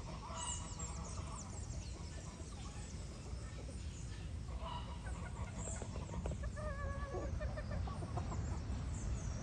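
Chickens clucking, with a longer wavering hen call a little past the middle, over high chirps of small birds and a low steady rumble.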